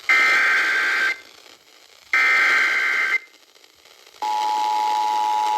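Emergency Alert System tones received over FM radio, announcing a severe thunderstorm warning. Two bursts of the digital SAME header, each about a second long and a second apart, are followed about four seconds in by the steady two-tone attention signal.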